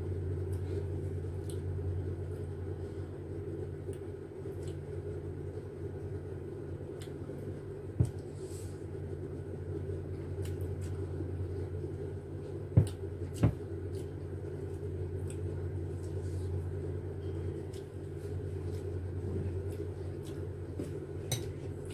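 A steady low hum under soft eating sounds as ripe mango slices dipped in salt and chili are bitten and chewed. Sharp clicks come about eight seconds in and twice in quick succession a few seconds later.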